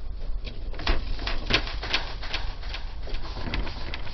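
A quick, even run of sharp clicks or taps, about two to three a second, lasting nearly three seconds over a low steady background.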